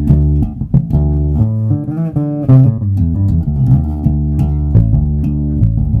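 Four-string electric bass played fingerstyle: a steady line of plucked low notes that change pitch, with a few sliding notes about two seconds in.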